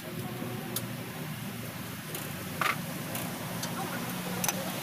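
A few light metal clicks and clinks from parts and tools being handled on the engine, over a steady low hum.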